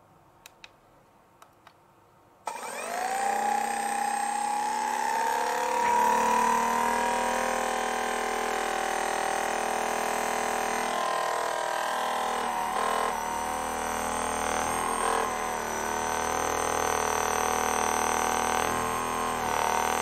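Theragun PRO percussion massage gun: a few button clicks, then about two and a half seconds in its motor starts and runs steadily at its 2400 percussions-per-minute setting, with a whine that rises for a few seconds as it spins up.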